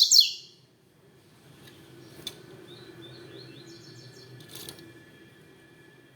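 Coleiro (double-collared seedeater) singing: a loud phrase of rapid, sharply sliding notes that ends about half a second in, then after a pause a fainter run of short notes about three seconds in. Two sharp clicks fall between them, over a low steady background hum.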